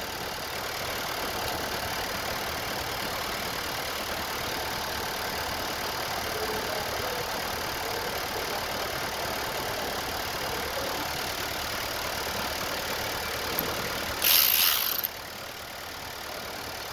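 2021 Nissan Sentra's four-cylinder engine idling steadily, running again now that a missing fuse has been replaced. Near the end, a brief loud hiss lasting about a second.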